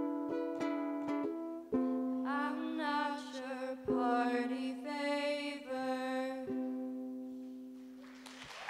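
Ukulele played live: a quick run of plucked strokes, then single strummed chords about two seconds apart, the last one ringing out and fading as the song ends.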